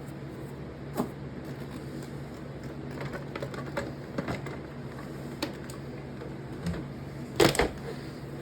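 Scattered light clicks and taps of small hand tools and parts being handled and set down on a workbench, with a sharper double knock near the end, over a steady low hum.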